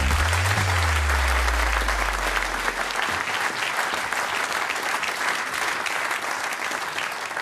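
Studio audience applauding steadily, thinning out near the end. Low held musical notes die away beneath the clapping over the first three seconds.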